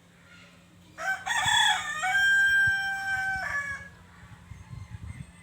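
A rooster crows once: a loud cock-a-doodle-doo of a few short broken notes rising into one long held note that drops away at the end. A few faint low knocks follow near the end.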